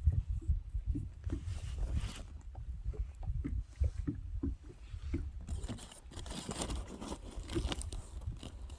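Small waves lapping and slapping against a small boat's hull, with wind rumbling on the microphone. A brighter rush of water or wind comes from about five and a half seconds to eight seconds in.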